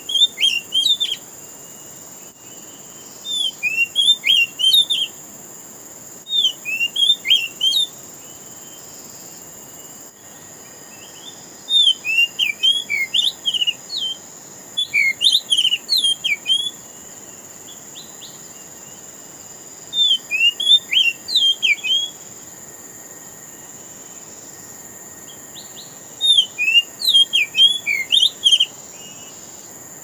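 Oriental magpie-robin (kacer) singing: seven short bursts of quick whistled notes, each one to two seconds long, over a steady high hum.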